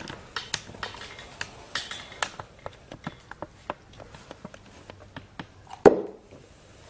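Hands opening and handling a phone's retail box, making irregular small clicks and taps, with one much louder knock about six seconds in.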